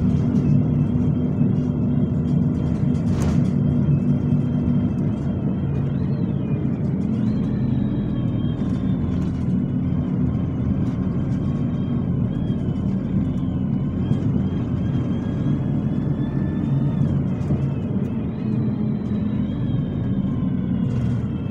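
Preserved bus engine running under way, heard from inside the saloon, with a high whine above it that rises and falls in pitch. A sharp knock sounds once about three seconds in.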